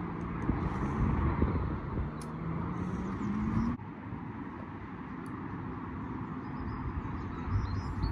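Low rumble of wind on the microphone with a distant motor droning, its pitch rising slowly, until the sound cuts off abruptly about four seconds in; a fainter drone goes on after.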